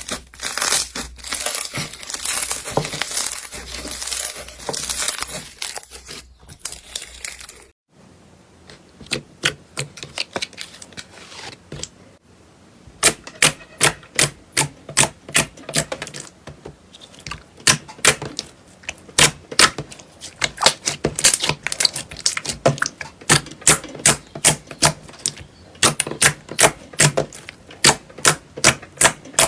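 Slime being handled by hand: a dense crackling for about the first eight seconds, then, after a sudden break, a long run of sharp clicks and pops at roughly two a second.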